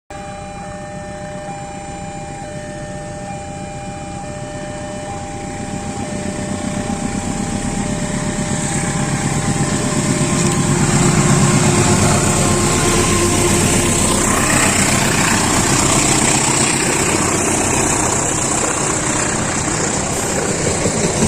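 Diesel locomotive of a passing train, its engine whine and rumble growing louder over about ten seconds, then holding steady with a broad hiss.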